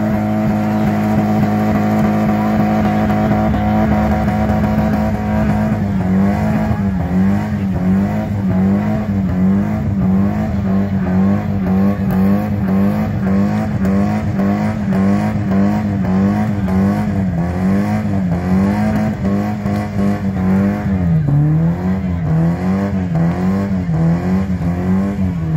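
Nissan coupe's engine revving hard in a burnout, rear tyres spinning in place. The engine note holds steady for the first few seconds, then rises and falls about once a second to the end.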